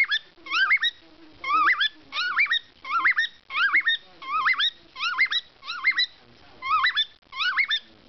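Male cockatiel whistling a tune: a continuous string of short whistled phrases, each a quick rising-and-falling glide, repeating about every half second.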